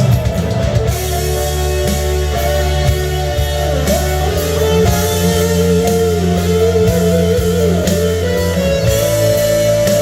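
Instrumental break of a song: a lead guitar plays a melody with bent, wavering notes over steady bass and drums.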